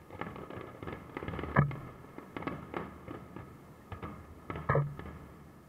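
Aerial fireworks shells bursting in a run of pops and crackles, with two louder bangs about three seconds apart.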